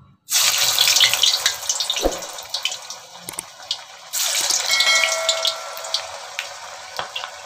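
Hot oil in a steel kadai sizzling loudly as vegetable Manchurian balls are dropped in by hand to deep-fry. The sizzle starts suddenly about a quarter second in, surges again about four seconds in as another ball goes in, then eases.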